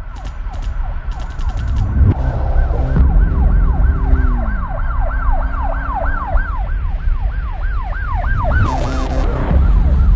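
Siren wailing in quick up-and-down sweeps, about three a second, over a steady low rumble. A few ticks come near the start and a short hiss about nine seconds in.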